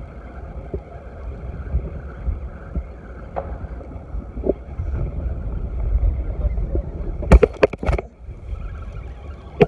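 Steady low rumble of wind and water around a small boat. About seven seconds in comes a quick cluster of sharp knocks, and one more loud knock near the end.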